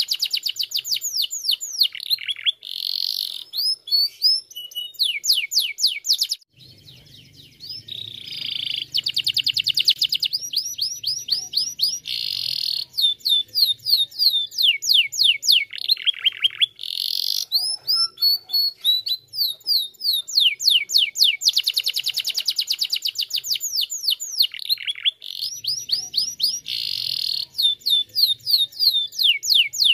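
Domestic canary singing a long, loud song of fast trills: rapid runs of repeated down-slurred notes, phrase after phrase with short breaks, and a brief pause about six seconds in.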